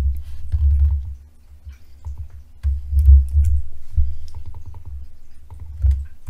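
Computer mouse clicks and keyboard keystrokes as text is copied and pasted. Irregular dull low thuds, the loudest sounds, come throughout.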